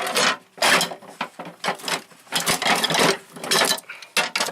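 Metal hand tools, locking pliers among them, clattering and scraping against each other and the drawer as they are shuffled around in a tool box drawer, in a string of uneven bursts.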